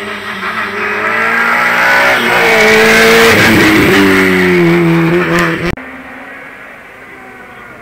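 Small hatchback race car accelerating hard uphill at high revs, getting louder as it passes close by; the engine note drops sharply about halfway through at a gear change and climbs again. The sound cuts off suddenly near the end, leaving a fainter engine further off.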